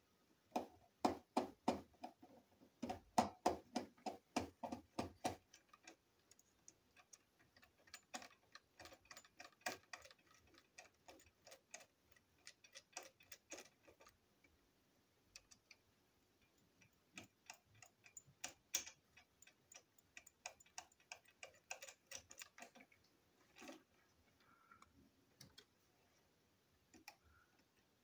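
Screwdriver turning a small screw in a plastic toy locomotive chassis: a run of small clicks about three a second as the screw is worked in. The clicks are loudest for the first few seconds, then come in fainter runs with short pauses between.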